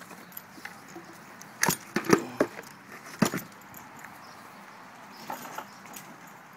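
German Shepherd chewing a chipmunk: sharp crunching cracks of small bones, a quick cluster about two seconds in and another about three seconds in, with lighter crunches later.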